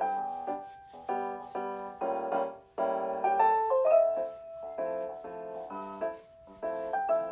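Background piano music: a gentle tune of chords struck about twice a second, each note ringing and fading.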